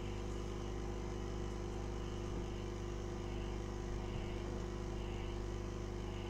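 Hot air rework station blowing at about half airflow, a steady hum, warming a phone's screen to soften the adhesive before prying.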